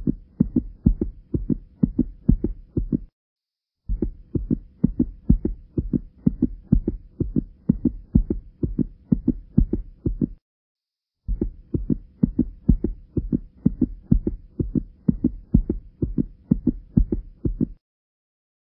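Muffled, bass-heavy pulsing beat on an edited soundtrack, a steady train of low thuds with a faint hum under it. It cuts off abruptly twice for under a second and stops shortly before the end.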